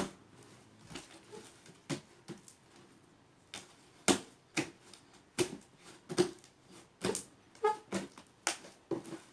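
Wet slime being squeezed and handled, giving a string of sharp, irregular clicks and snaps, about a dozen, the loudest in the middle of the stretch.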